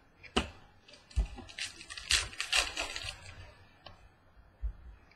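Trading cards being handled: a few sharp clicks, then about two seconds of crackly rustling in the middle, like packaging or card sleeves being worked.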